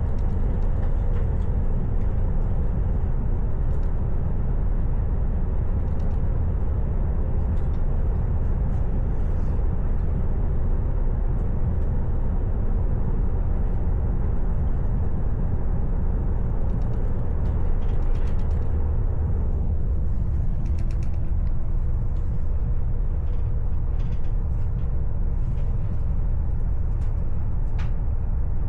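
Train running, a steady low rumble with light creaks and clicks over it; the rumble thins a little about two-thirds of the way in.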